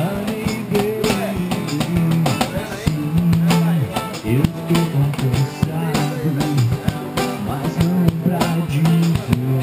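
Rock music playing: guitar over a stepping bass line and drum kit, with no singing.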